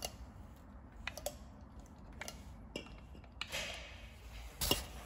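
Light scattered clicks and taps of a pump oil can and a steel connecting rod being handled over the crankshaft while oil goes onto the journals, with a sharper metallic click near the end.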